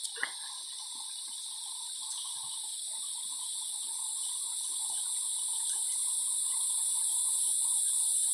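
Small waterfall splashing steadily into a rock pool, a continuous rush of water that grows slowly louder.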